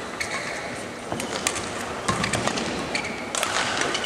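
Badminton rally: sharp racket strikes on the shuttlecock and players' shoes squeaking and scuffing on the court mat, with several quick clicks from about a second in and short high squeaks near the start and end.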